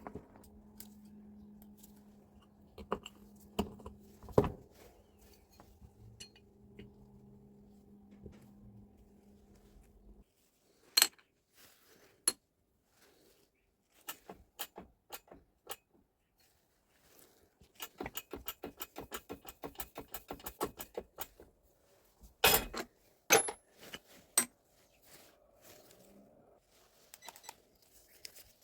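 Metal parts and hand tools clinking, tapping and knocking on a workbench during the rebuild of a Hilti TE76 hammer drill, with a fast run of small clicks in the middle and a few louder knocks later. A low steady hum underneath stops abruptly about ten seconds in.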